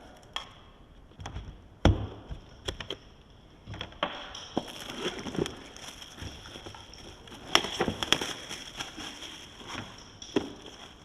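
Handling of a product box and its packaging: scattered knocks and clicks with light rustling, a sharp knock about two seconds in and another cluster of clicks near eight seconds.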